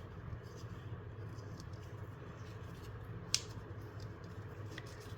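Sheets of a paper notepad being handled and slowly torn: faint crackling ticks over a steady low hum, with one sharper click a little over three seconds in.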